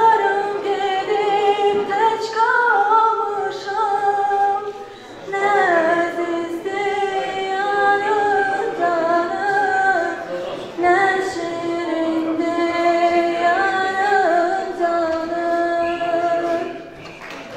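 A young woman singing unaccompanied into a microphone: a slow melody of long, held notes, with a short break about five seconds in.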